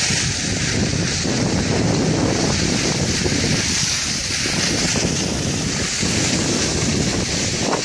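Wind gusting on the microphone, an uneven low rumble, over a steady rushing hiss.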